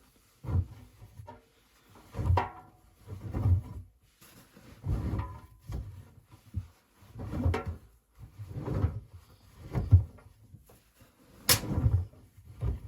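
Beko WA 1050 washing machine drum turning during a wash, the load thudding and swishing in the drum about once every second and a half.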